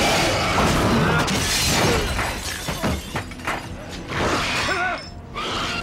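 Television fight-scene soundtrack: a rapid run of hits and crashes with a shattering crash, and snarls from the fighters, over a dramatic music score.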